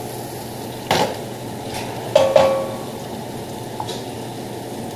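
A long spoon stirring onions in hot oil in a stainless steel stock pot, over a steady background noise. The spoon knocks against the pot three times, once about a second in and twice just after two seconds, and the last knock rings briefly.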